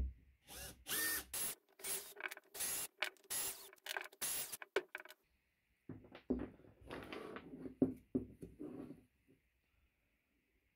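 Cordless drill-driver driving screws into a wooden bending form in a quick series of short bursts. About six seconds in, the drill stops and there are scattered knocks and clatters of small wooden clamp pieces being handled on a wooden workbench.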